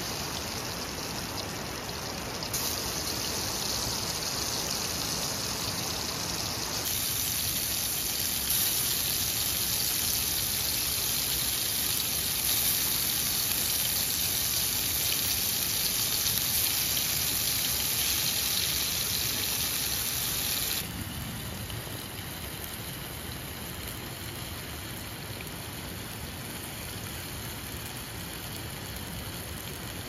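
Stream water rushing over rocks, a steady gushing noise. It steps up sharply about 2.5 and 7 seconds in and drops back suddenly about 21 seconds in.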